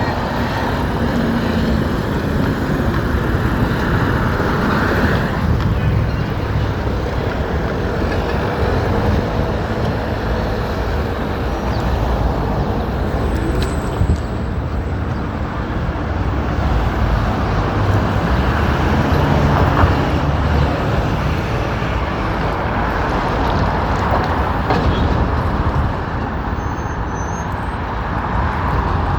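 Steady city street traffic noise: cars and trucks passing on a busy road.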